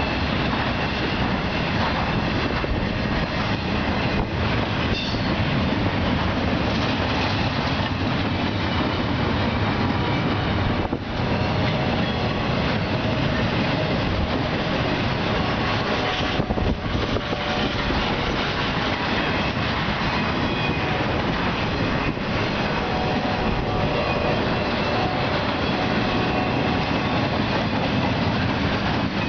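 Norfolk Southern intermodal freight cars, flatcars carrying highway trailers and well cars carrying containers, rolling past with a steady rumble of steel wheels on the rails.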